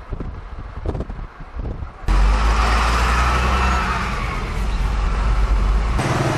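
Wind buffeting the microphone in a moving car, in irregular low gusts. After a sudden cut about two seconds in, it gives way to a loud, steady low rumble of car engine and road noise heard from inside the cabin.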